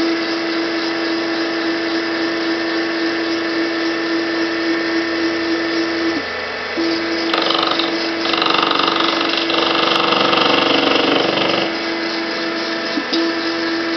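Mini lathe fitted with a homemade CNC drive, its motors running with a steady whine that cuts out briefly twice as the controller buttons are pressed. From about seven seconds in, a louder, rougher whirring joins for about four seconds as the drive moves the machine.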